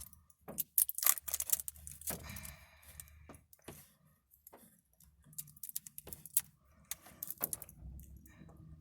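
Plastic seal on a small lip gloss tube being picked at and peeled off by hand: irregular sharp clicks and plastic crinkling, with a longer crinkle about two seconds in.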